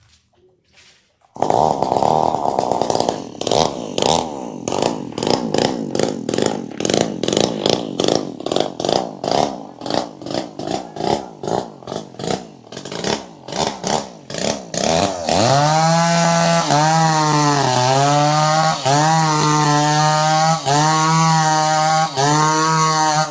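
Chainsaw engine comes in suddenly about a second in and runs unevenly with rapid pulsing. From about two-thirds of the way through it holds at high revs, its pitch dipping briefly every second or two.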